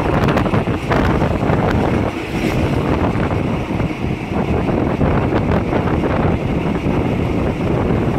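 Steady wind noise buffeting the microphone over the running rumble of a moving train.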